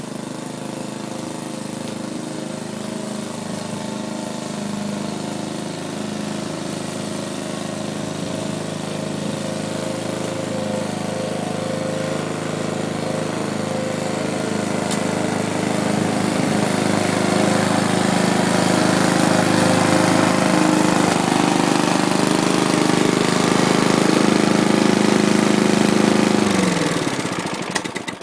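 Lawn mower engine running steadily, growing louder as it comes closer. Near the end it winds down in pitch and stops.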